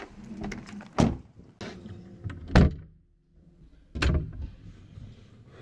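Knocks and thumps of someone climbing into a car and settling a bag, with the car door shutting with a loud thud about two and a half seconds in, after which the outside noise falls away; another thump follows a second or so later.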